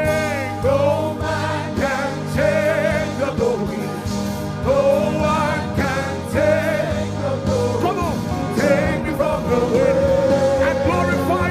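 Gospel worship song: a lead voice sings long phrases with wavering, bending pitch over sustained instrumental chords.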